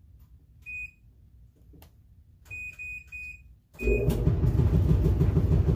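Electronic beeps from a laundry machine's control panel: one, then a quick run of three, then another. Just after, a loud steady rumble starts about two-thirds of the way in as the machine begins running.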